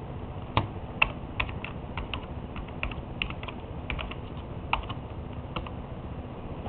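Typing on a computer keyboard: a quick, uneven run of key clicks that starts about half a second in and stops about a second before the end.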